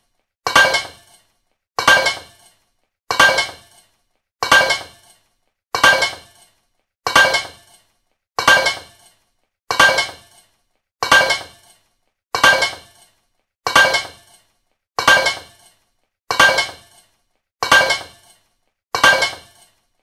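A metal pipe falling and clanging on a fabric-covered surface, the same ringing clang repeated about every 1.3 seconds, each one dying away in under a second.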